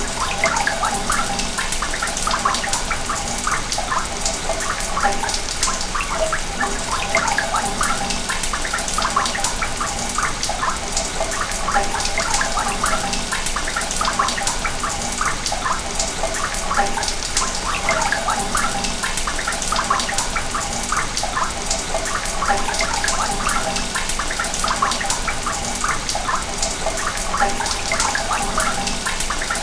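Sewage water running through pipes: a steady rush of flowing water with many small, quick gurgles and splashes throughout.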